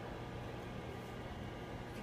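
Room tone: a steady low hum under a faint even hiss, with no distinct event.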